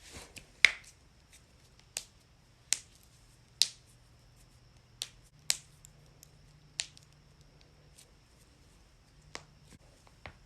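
Joints cracking: about nine sharp, separate pops at uneven intervals, the loudest about half a second in, with fainter clicks in between.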